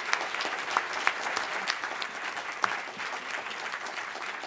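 Audience applauding: a dense run of many hand claps, easing slightly toward the end.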